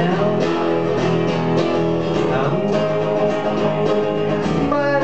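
Acoustic guitar strummed in a live song, with a hand shaker keeping time in even strokes.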